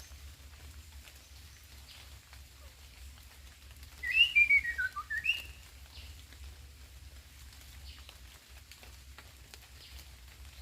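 A bird sings one short whistled phrase about four seconds in: a quick run of notes stepping down in pitch, ending with a single upward-sliding note, lasting about a second and a half.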